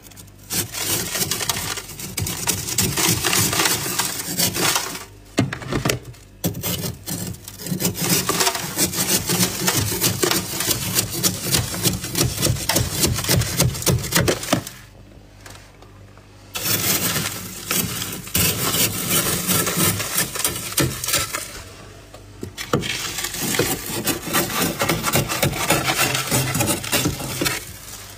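Thick freezer frost being scraped off with a scraper: rapid scraping strokes in long runs, broken by brief pauses, the longest near the middle.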